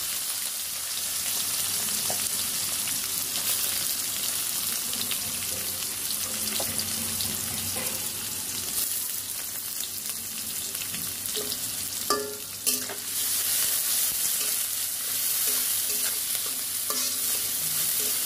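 Sliced onions sizzling in hot oil in a karahi, a steady frying hiss. A spatula scrapes and knocks against the pan now and then, most plainly about twelve seconds in.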